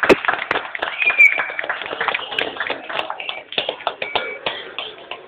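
A small group clapping hands, irregular and uneven, thinning out and dying away near the end, with voices talking over it.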